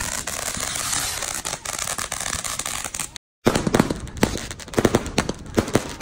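A ground fountain firework hissing and crackling as it sprays sparks. After a brief break about three seconds in, aerial fireworks launch in a rapid, uneven run of sharp bangs, several a second.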